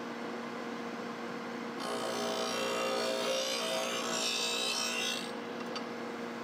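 MAG-8200 blade sharpener's electric motor and half-inch grinding wheel running with a steady hum. About two seconds in, a steel mulching mower blade is drawn across the wheel, and a harsh grinding hiss lasts about three and a half seconds before stopping near the end.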